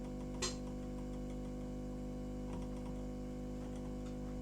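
Steady hum of a hot air rework station running while it heats the solder under the port, with one sharp click about half a second in and a few light ticks later as a tool pokes at the board to test whether the solder has melted.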